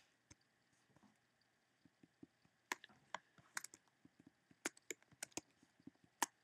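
Faint, irregular keystrokes on a computer keyboard: about twenty scattered sharp clicks, coming more thickly after the first couple of seconds.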